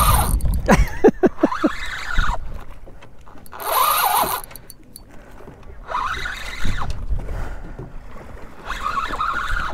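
Fishing reel cranked in repeated bursts of a second or two, its gears whirring, while a heavy fish is pumped up on the line.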